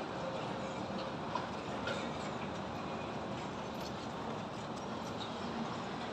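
Steady wash of distant city traffic, with a few faint clinks and knocks about a second and two seconds in.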